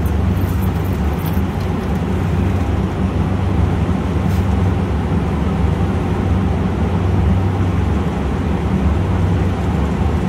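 Steady low machinery drone with a hum of several low tones, even in level throughout.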